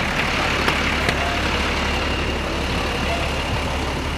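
Large tour coach's diesel engine running close by as the coach pulls slowly away, an even low engine sound. Two short clicks come about a second in.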